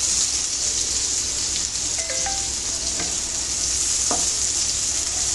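Onions sizzling steadily in hot oil in a frying pan, with a couple of light clicks about three and four seconds in.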